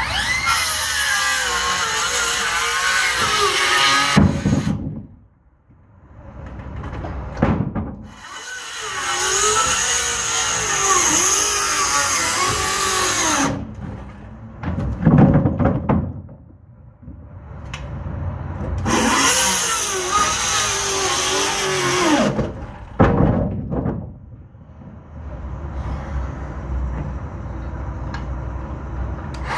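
Handheld power tool running in three bursts of about four to five seconds each, its pitch wavering under load as it works into wooden framing, with sharp knocks of wood between the bursts.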